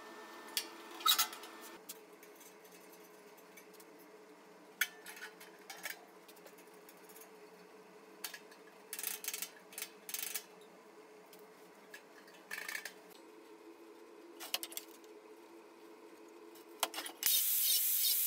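Scattered light metallic clinks and taps as stainless-steel stove door parts and latches are handled, over a faint steady hum. About a second before the end, a Bosch angle grinder starts suddenly and runs loudly as it begins cutting a rectangular steel tube.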